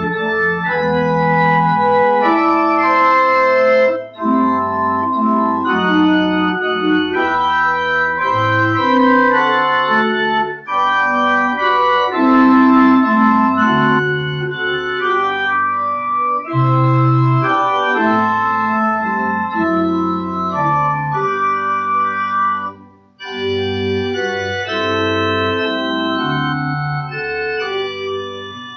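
Church pipe organ playing a hymn tune in held chords that change every second or so, with a short break between phrases about two-thirds of the way through.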